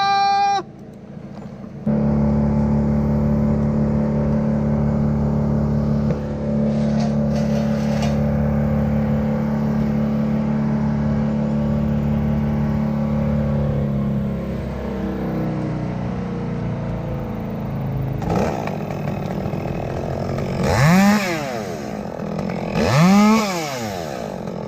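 A small engine revs briefly at the start. A loud machine engine then runs steadily for about twelve seconds and slowly winds down. Near the end, a chainsaw revs up and back down twice.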